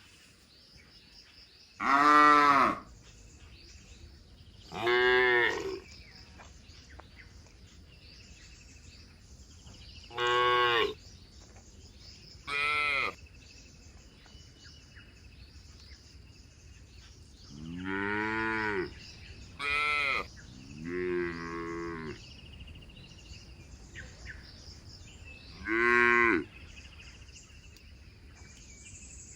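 Cattle mooing: about eight short calls a few seconds apart, several with a pitch that rises and then falls, one near the middle held a little longer.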